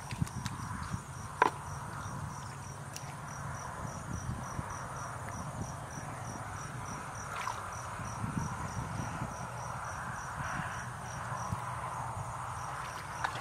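Insects chirping in a steady, even rhythm of about two or three pulses a second over a constant high buzz. Underneath are soft wet splashes and squelches from hands groping through shallow muddy water, with a sharp click about a second and a half in.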